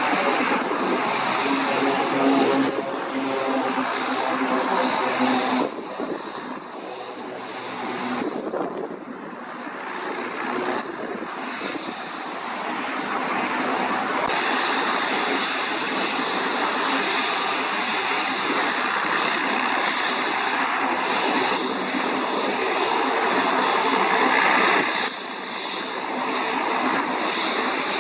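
Airbus A330 jet engines running: a steady rush with a thin, high whine held throughout. The sound changes abruptly a few times, dropping in level near a quarter of the way in and again near the end.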